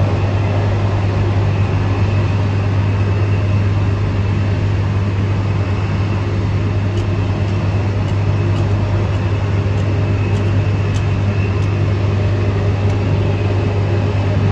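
A steady low hum under a constant rushing noise, unchanging throughout, with a few faint high ticks in the second half.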